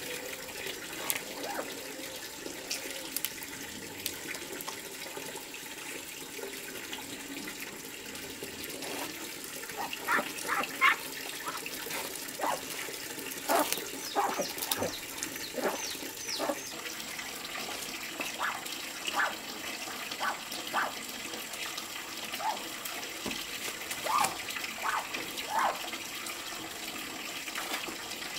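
Steady rush of water running from a tap into a basin, with short honking calls from geese penned in bamboo baskets, many of them from about ten seconds in.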